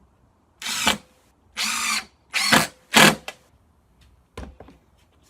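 Cordless impact driver with a Robertson bit driving a 2-inch screw into a wooden chair slat, in four short bursts, the last the loudest, followed by a few light clicks.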